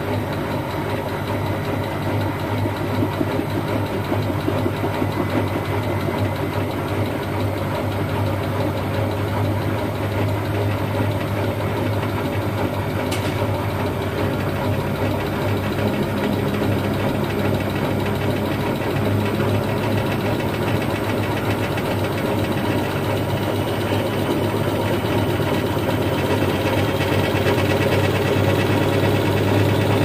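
Siemens Siwamat IQ washing machine running, a steady deep motor-and-drum hum that grows slightly louder, with a faint whine rising in pitch over the last several seconds. A single faint tick about halfway through.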